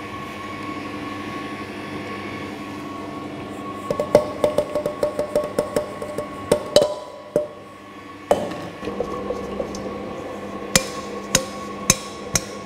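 Bosch stand mixer running with its whisk in a steel bowl, a steady motor hum. Over it, a quick run of sharp metallic taps comes from about four to seven seconds in, then a few single sharp knocks near the end, as steel mixing bowls and a spatula are knocked against the mixer bowl.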